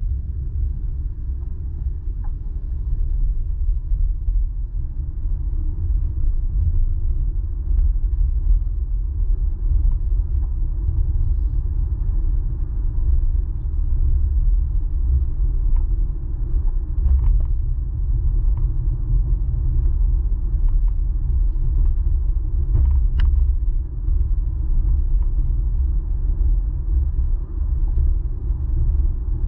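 Steady low road rumble inside a moving car's cabin: tyre and engine noise while driving, with a few faint clicks now and then.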